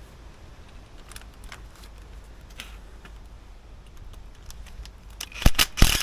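Light clicks and clinks of tools and metal brake parts being handled, then a few sharp, loud knocks close together near the end.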